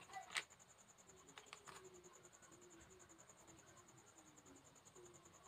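Very quiet hand-handling of a wet sheet mask being unfolded: a short crackle about a third of a second in and a couple of soft ticks a little over a second later. A steady, high-pitched pulsing trill runs behind it.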